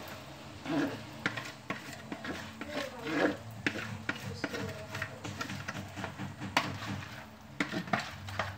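Metal spoon clicking and scraping in a plastic bowl as seasoning is stirred, in irregular sharp clicks.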